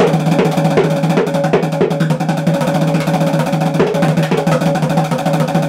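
Bongo drum struck with drumsticks in a fast, unbroken run of strokes, a wild drum-roll-like solo with the drumheads ringing under the hits.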